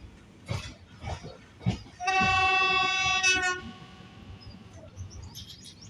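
Indian railway train horn sounding one steady note for about a second and a half, a couple of seconds in, preceded by a few sharp knocks.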